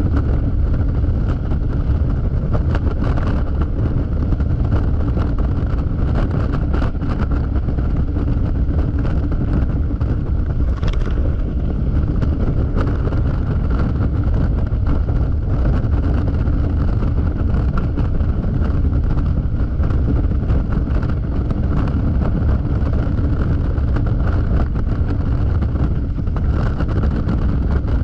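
Wind rushing over the microphone at freeway speed, with the Yamaha XMAX scooter's single-cylinder engine running steadily underneath.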